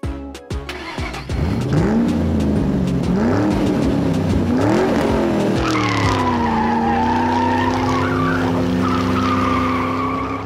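Race car engine revving up and dropping back three times, then holding a steady high pitch while tyres squeal with a wavering screech. Music plays briefly at the start.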